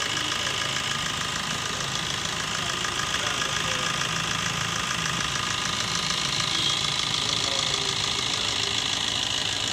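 Suzuki DDiS 1.3 L four-cylinder common-rail turbo-diesel idling steadily with a fast, even diesel clatter.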